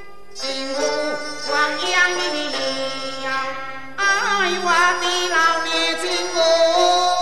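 Teochew opera music: a traditional Chinese ensemble playing a melody whose notes slide and waver in pitch. A new, louder phrase begins about four seconds in.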